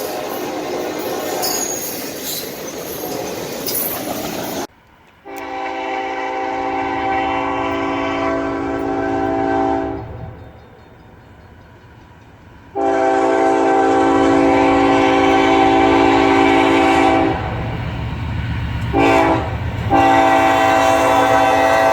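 A passing train's rumble and wheel clatter, cut off abruptly. Then a locomotive air horn sounds a steady chord in two long blasts, a short one and another long one starting near the end: the long-long-short-long grade-crossing signal.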